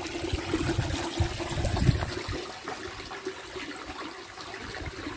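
Water trickling and running, an uneven watery noise.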